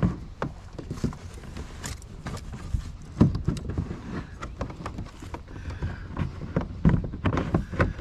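Irregular knocks, clunks and rattles of a metal-framed kayak seat being handled and fitted onto a plastic kayak hull.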